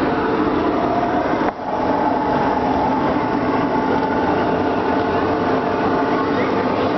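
Bumper boat motors running steadily, a continuous engine drone with a brief dip in loudness about a second and a half in.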